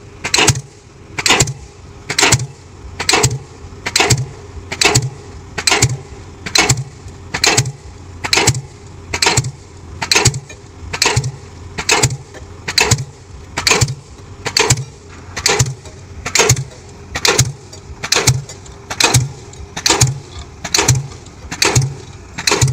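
Diesel pile hammer driving a concrete spun pile, striking steadily a little faster than once a second, each blow a sharp bang, over the steady drone of the carrier excavator's engine.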